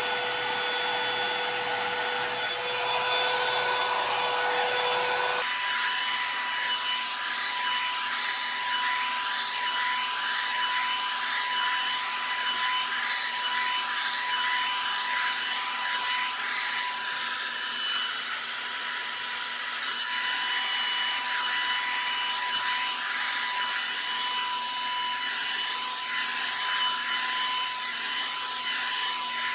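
Revlon One-Step hot air brush (1100-watt dryer-volumizer) running steadily with a motor whine over rushing air. About five seconds in, the whine abruptly jumps higher in pitch.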